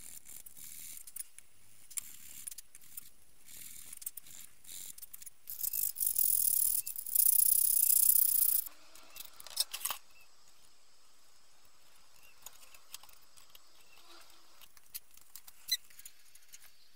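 Hands rubbing and scrubbing a round metal Tilley storm-lamp part, a loud scratchy hiss for about three seconds near the middle, among light handling clicks and taps.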